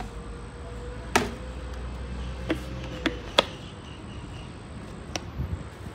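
A few sharp plastic clicks and taps, spread out with a second or so between them, as a pressure washer's foam bottle is handled and its spray attachment fitted on. A low steady hum sits underneath and fades out about halfway through.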